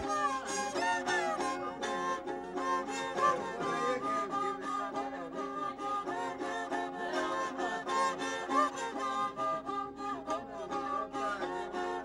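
Traditional string music, a fiddle melody over a steady held low note.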